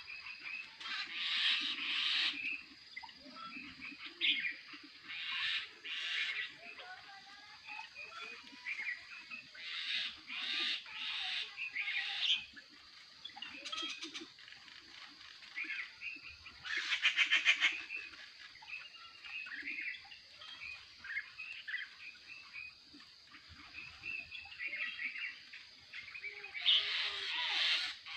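Several birds chirping and calling together, with short bursts of rapid chatter every few seconds.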